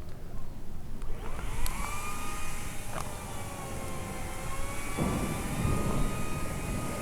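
Makita 40V cordless top-handle chainsaw's electric motor whining up to speed about a second in and then running steadily at full speed. A rougher, noisier stretch comes about five seconds in.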